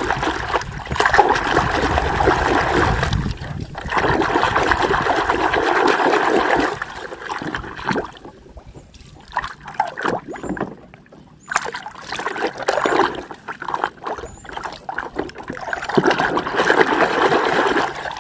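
Muddy water sloshing and trickling as hands search through it for toy vehicles: several splashy stretches of a few seconds each, with small knocks of plastic in the quieter gaps between.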